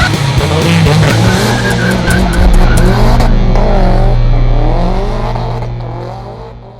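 A car drifting: the engine revs rise and fall with tyre squeal. The sound fades out near the end.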